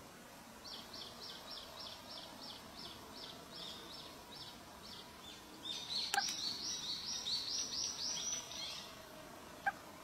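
Thrush nestlings begging in the nest: a regular series of high chirps, about three a second, then from about six seconds in a louder, faster chorus of overlapping begging calls that stops near nine seconds. A short sharp click sounds about six seconds in and another near the end.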